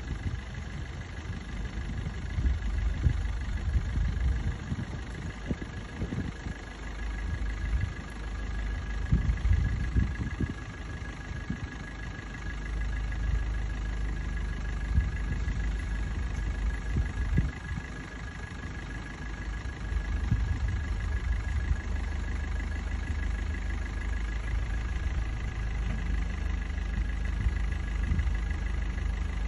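Vehicle engine idling: a steady low rumble that surges now and then, with a faint steady high whine above it.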